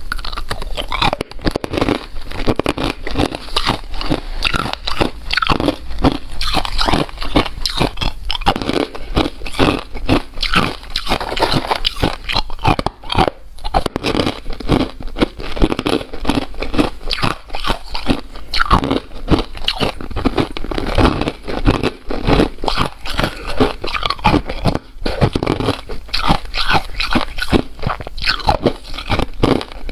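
A person biting and chewing crunchy ice, with rapid, irregular crunches and crackles that go on without a break.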